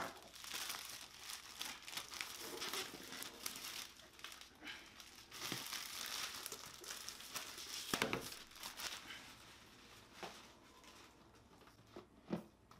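Thin plastic protective film being peeled off a laptop lid and crumpled in the hands: dense crinkling and crackling with a few sharp snaps. It dies down about ten seconds in, with a couple of light knocks near the end.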